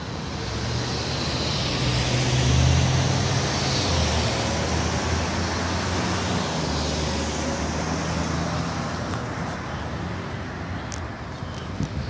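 Street traffic: a passing motor vehicle's engine hum and tyre noise swells to a peak about three seconds in, then slowly fades.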